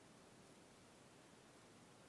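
Near silence: faint, steady background hiss.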